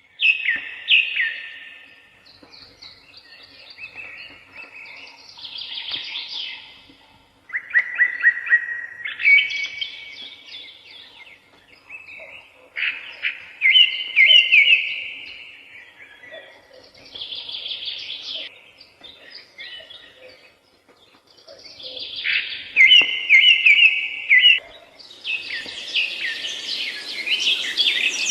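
Wild birds singing: a series of separate song phrases of quick, high chirping notes every few seconds, with quieter calls between them. Near the end a denser, hissier layer of sound joins in.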